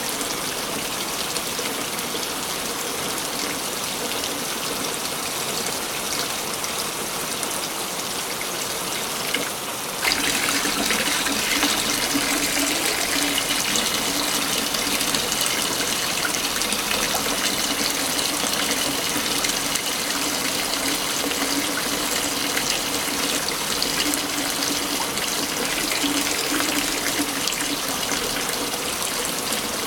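Steady rushing and splashing of a forest waterfall. About ten seconds in the sound abruptly gets louder and brighter, then runs on evenly.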